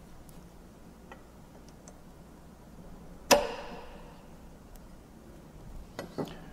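One sharp metal clank that rings on briefly, about halfway through, with a few faint clicks before it and two lighter knocks near the end: a steel pry bar and fittings striking a centrifugal pump's shaft and frame while the shaft is levered up.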